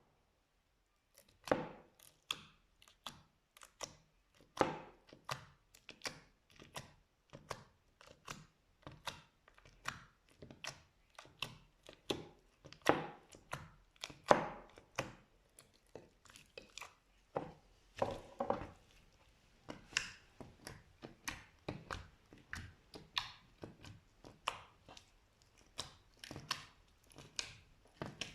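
Slime being worked by hand, making a long irregular string of short sticky crackles and pops, a few every second.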